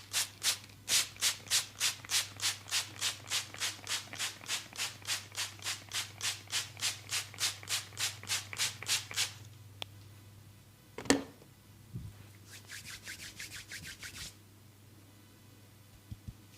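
A massager's hands rubbing briskly and rhythmically over the body during a massage, about three to four strokes a second for some nine seconds. About eleven seconds in comes a single sharp, loud sound, then a shorter run of quicker, softer rubbing strokes.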